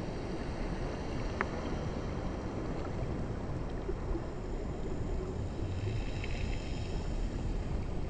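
Muffled, steady rushing and sloshing of water around a camera moved underwater, heaviest in the low end, with one faint click about a second and a half in.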